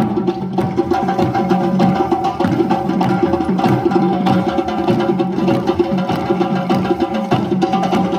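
Music with a busy percussion beat: quick, clicky wood-block-like strokes over steady sustained tones.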